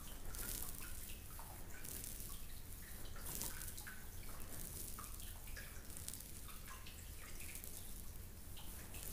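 Water dripping and trickling, with many small plinking drops at irregular intervals over a soft steady hiss.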